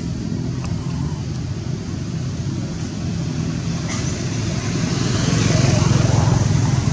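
Steady low rumble of a motor vehicle engine running, growing louder about five seconds in.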